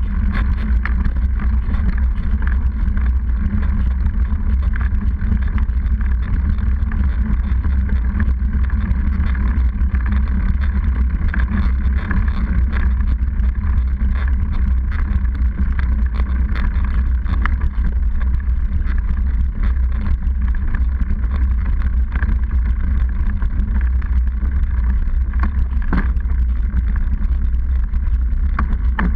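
Steady heavy rumble of a mountain bike's knobby tyre rolling on concrete, heard through a camera mounted on the seatpost, with wind on the microphone and small rattles and clicks from the bike throughout.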